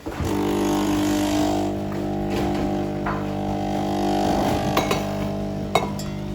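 Sage Nespresso capsule coffee machine's pump starting suddenly and buzzing steadily as it brews, with a couple of sharp clicks near the end.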